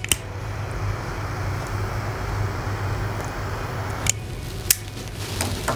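Butane lighter flame hissing steadily as a cigar is relit, cutting off about four seconds in, followed by two sharp clicks.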